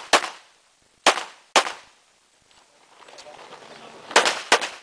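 Pistol shots fired in a timed course of fire: one just after the start, a pair about a second in, then after a pause of about two and a half seconds another quick pair near the end, each with a short echo.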